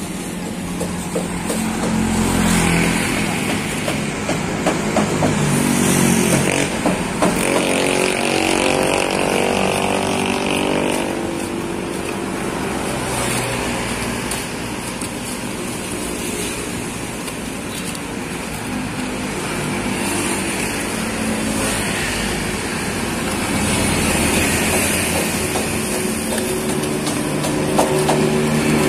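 City road traffic, cars and motorcycles passing steadily, with one vehicle's engine rising in pitch as it speeds up about eight to eleven seconds in. A few short scrapes and knocks come from a trowel mixing cement in a plastic bucket.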